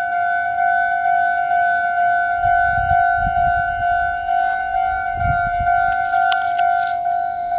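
Japanese railway level-crossing alarm ringing: a single steady electronic bell tone repeating evenly without a break. A few sharp clicks sound about six to seven seconds in.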